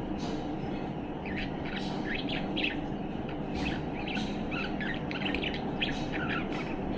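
Pet budgerigar chirping and warbling in a quick run of short calls starting about a second in, over a steady low hum.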